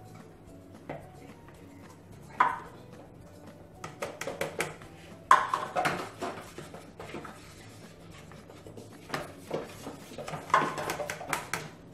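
Plastic cups and spoons knocking and scraping against plastic mixing bowls as corn flour is scooped and poured, in scattered clusters of clatter.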